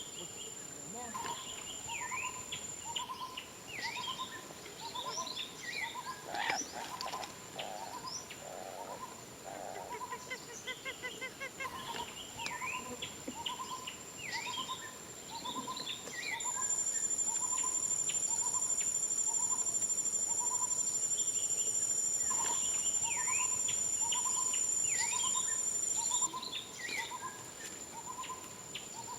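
Outdoor bird and insect chorus: a hooting bird call repeats a little more than once a second, other birds give short falling chirps, and a steady high-pitched insect whine runs underneath. The whine grows much louder for about ten seconds in the second half, then drops back.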